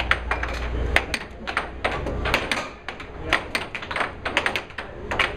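Air hockey puck clacking off the players' mallets and the table's rails in quick, irregular strikes during a fast rally.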